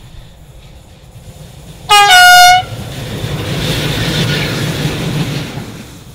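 A pair of electric locomotives sounds its horn in one short, loud blast of about half a second, then rushes past with a swelling rumble that fades away.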